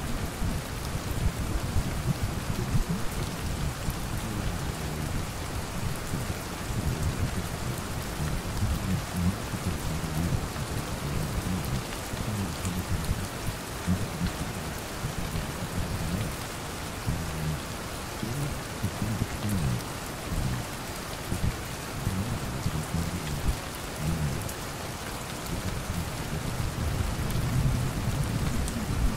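Steady rain pattering, with a continuous low rumble underneath.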